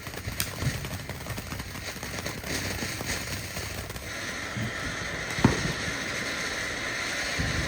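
Fireworks popping and crackling, with one louder bang about five and a half seconds in. A steady hiss comes in about halfway through.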